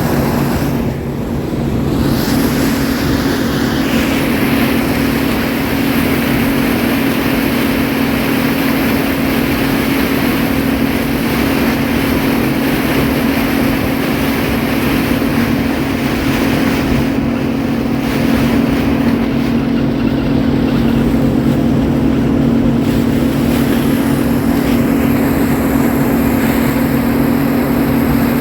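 Farm machinery engine running at a steady speed, a constant loud drone with a deep hum that holds the same pitch throughout.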